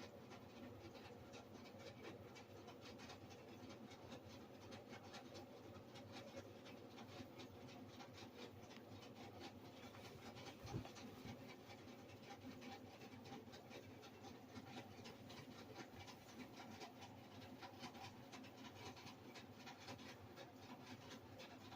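Near silence, with faint continuous rustling and small ticks of a spun-dry bedsheet being handled, and one soft knock about ten seconds in.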